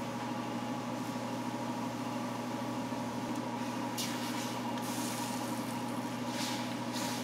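Tomato sauce scraped with a spatula into a wok of chicken simmering in broth, with a few short scrapes and stirs in the second half, over a steady hum of kitchen equipment.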